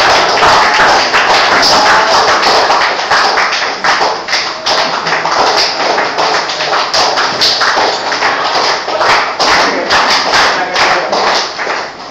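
A small audience clapping, loud and continuous, dying away near the end.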